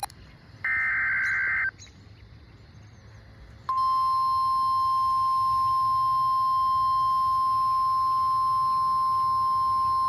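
Weather radio alert: about a second in, a one-second burst of SAME digital header data, then low radio hiss, then the steady 1050-hertz Warning Alarm Tone starting a little under four seconds in. The tone signals that a warning follows, here a severe thunderstorm warning.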